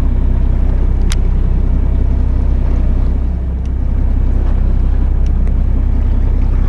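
Steady low rumble of wind and a fishing boat at sea, with one sharp click about a second in and a few faint ticks after it.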